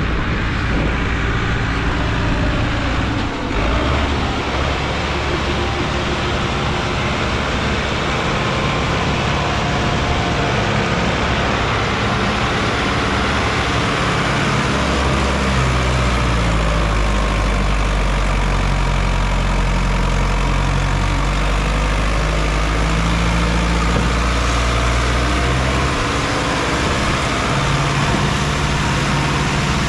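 Sonalika DI 750 tractor's diesel engine running under load, pulling a trolley heaped full of soil. The low engine drone is steady and loud, growing deeper and stronger from about the middle of the stretch to near the end.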